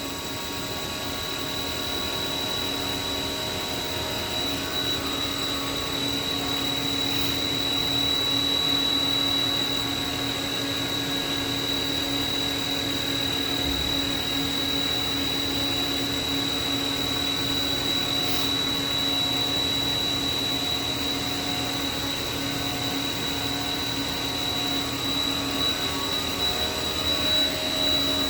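Haas VF-3 CNC vertical mill's CAT 40 spindle running steadily at 5,000 RPM, a high whine over a lower hum. It runs smoothly and fairly quietly, the sign of a spindle in good condition.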